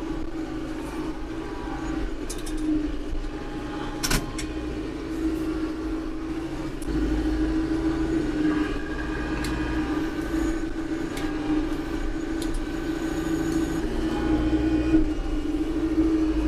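Branson compact tractor's diesel engine running steadily under a root-grapple load of pine stumps, getting louder about seven seconds in. A single sharp knock sounds about four seconds in.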